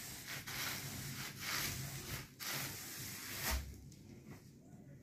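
Bubble-wrapped fishing rod being drawn out of its packing tube: the plastic wrap rubs and rustles in a run of swishes, then a low bump about three and a half seconds in, after which it goes quieter.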